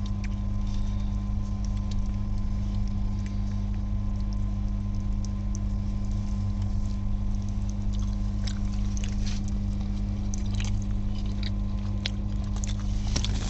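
Steady drone and hum of a vehicle running at a constant pace, with scattered light clicks and ticks, more of them in the second half.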